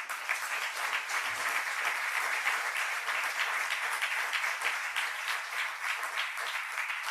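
Audience applauding steadily after an applause line in a speech, a dense patter of many hands clapping that starts at once and begins to fade near the end.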